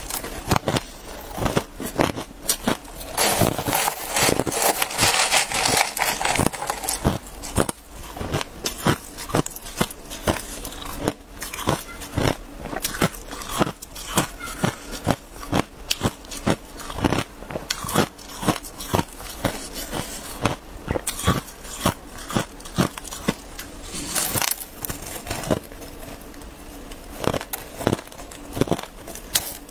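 Crushed ice being chewed: many sharp, irregular crunches of ice breaking between the teeth.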